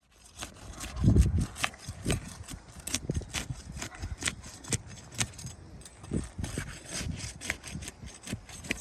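Irregular scraping and light knocks of work on asphalt roof shingles, with a louder low thump about a second in.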